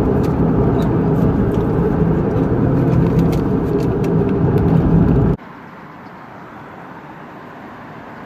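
A moving car's engine and road noise, a loud steady low rumble with a few faint clicks. About five seconds in it cuts off abruptly, leaving a much quieter steady background hiss.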